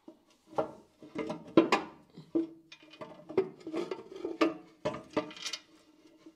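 Irregular metal clanks and knocks, each followed by a short ringing tone, as the metal gear-end cover of a Schaublin lathe is swung open and handled.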